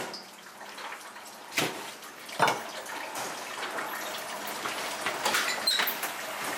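Water running and splashing while a large gutted fish is washed and handled, with a couple of sharp knocks about one and a half and two and a half seconds in and a few lighter clatters near the end.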